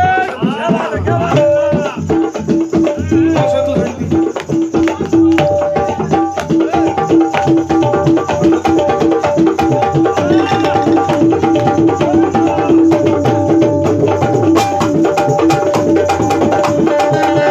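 Music with a fast, dense drum beat under a repeating melody of held notes.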